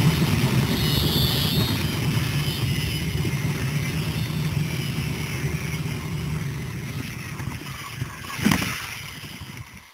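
Zipline trolley pulleys rolling along the steel cable with a steady low whir, with wind rushing over the microphone. The whir slows and fades over the last few seconds as the rider comes in to land, with one short bump about eight and a half seconds in.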